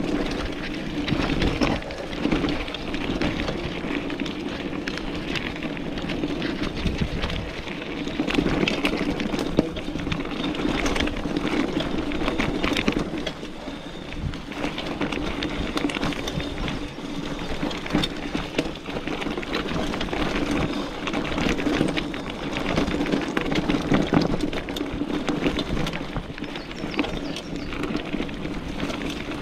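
B'Twin 520 mountain bike rolling along a wet dirt woodland singletrack. The tyres make a continuous rolling noise, with frequent clicks and rattles from the bike jolting over bumps.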